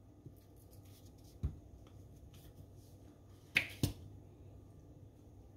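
Three short, sharp clicks from handling a plastic squeeze bottle and a metal spoon over a glass bowl: one about a second and a half in, then two in quick succession near four seconds in.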